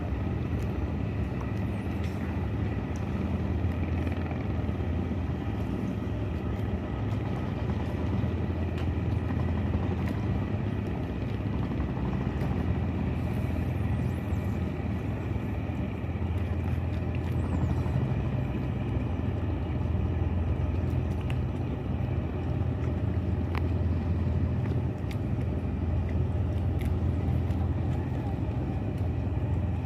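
Boat engine running steadily, a low drone with no change in pace.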